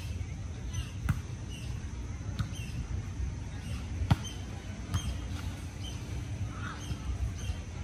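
A small animal's short high chirps, repeating every half second or so, over a steady low rumble, with a few sharp clicks.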